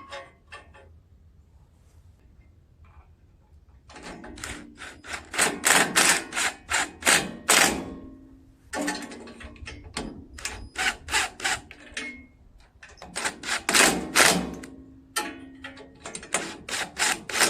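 Hand tools and metal engine parts clicking and clinking in quick, uneven runs of sharp taps, in four bursts of a few seconds each, as parts are worked on and fitted back onto a small engine.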